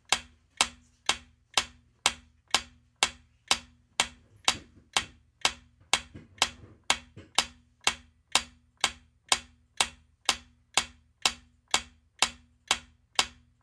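Steady clock-style ticking sound effect marking a quiz countdown timer, about two evenly spaced ticks a second, counting down the answer time.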